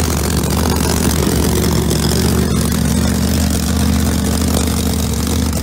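Drag-race cars' big-inch V8 engines idling in the staging lanes, a loud, steady rumble that holds an even pitch.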